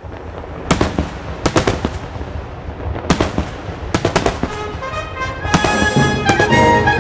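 Daytime fireworks display: aerial shells bursting overhead in an irregular, rapid series of loud, sharp bangs, with crackling between the reports.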